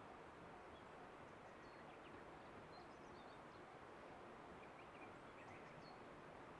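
Near silence: faint outdoor ambience with a few brief, faint, high bird chirps.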